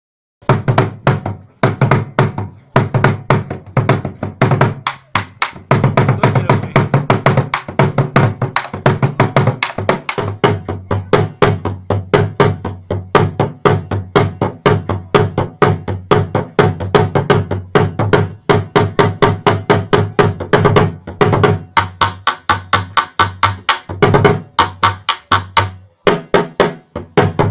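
Ewe sogo drum played with a wooden stick and a bare hand: a fast, dense rhythm of sharp strokes over low, ringing tones, with a brief break near the end.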